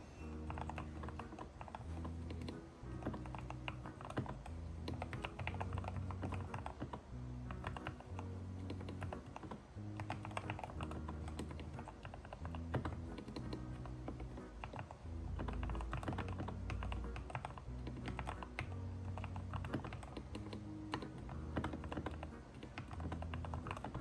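Continuous typing on a Keychron K6 mechanical keyboard with Gateron Milky Yellow linear switches lubed with Krytox 205G0: a dense, irregular stream of key clacks. Background music with held bass notes plays underneath.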